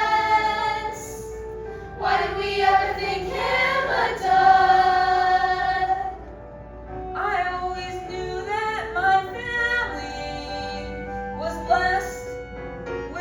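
Music: a song sung by voices over instrumental backing, with many long held notes. The sound drops briefly about six seconds in, then the melody picks up again.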